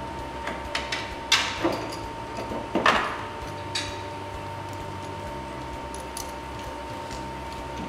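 Metal clinks and rattles of a snowmobile chain-case drive chain and gears being lifted out of the chain case. A cluster of knocks comes in the first four seconds, the loudest about three seconds in, then only a few faint ticks.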